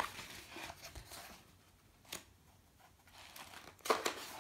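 Pages of a paperback picture book being turned by hand: a few short paper rustles and flips, the loudest a page turning near the end.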